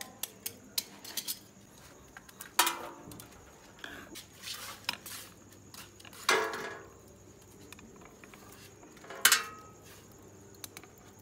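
Long metal tikka skewers clinking and scraping against each other and the grill as they are turned over charcoal. There are scattered light clicks and three louder, ringing clanks.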